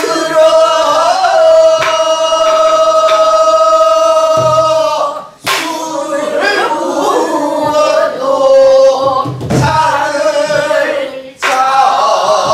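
Korean Namdo folk song (minyo) sung in the southern style, a woman's voice holding one long note for about five seconds. After a short breath about five seconds in, the singing goes on with several voices joining in, and there is another brief breath near the end.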